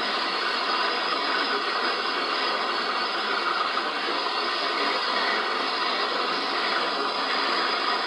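Handheld gas torch flame hissing steadily as it heats a copper refrigerant-line joint for brazing.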